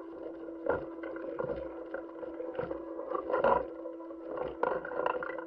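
Steady hum with a hiss behind it, broken by irregular knocks and thuds every half second or so, the loudest cluster about three and a half seconds in: the background noise on the soundtrack of footage presented as astronauts working outside a spacecraft.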